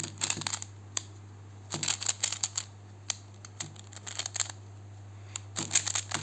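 Plastic clicking and clacking of a FanXin Pyraminx puzzle being turned by hand, in quick bursts of clicks separated by short pauses.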